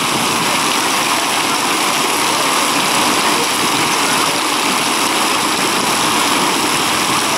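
Water spraying and splashing from the jets of a waterpark play structure, a steady even rush of water noise.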